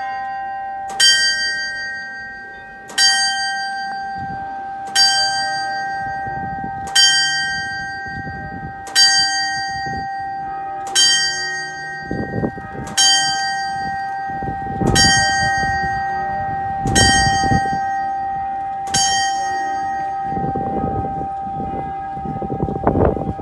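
Bell of Solothurn's eleven-hour clock striking the hour: single even strokes about two seconds apart, ten of them here, each ringing on into the next. A low noise swells between the later strokes.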